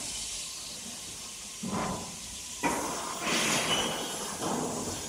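A steady hiss with a few soft scuffing and rustling sounds, about two seconds in and again between three and four and a half seconds.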